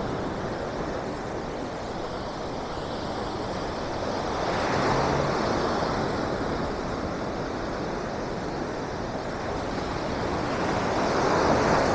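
Sea surf breaking on a beach, a steady wash that swells twice, about five seconds in and again near the end.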